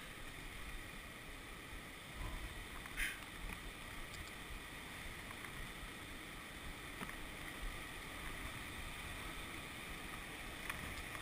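Faint, steady rush of river water around an open canoe paddled on calm water, with a few soft paddle splashes and knocks, the clearest about three seconds in.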